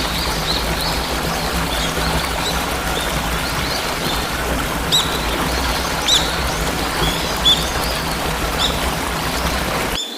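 Waterfall rushing steadily with small birds chirping over it in short, repeated high chirps, a few louder ones in the middle. Just before the end the deep rumble of the water drops away, leaving the lighter hiss and the birds.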